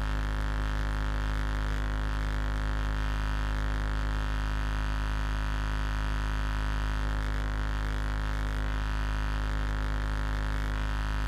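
Steady electrical hum with many overtones, unchanging in pitch and loudness, cutting off abruptly at the end.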